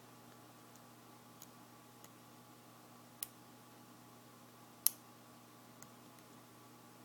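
Small sharp clicks of a lock pick and tension wrench working the pins inside a Sterling 5-pin padlock: a few faint ticks, a clearer click just past three seconds and the loudest just before five seconds.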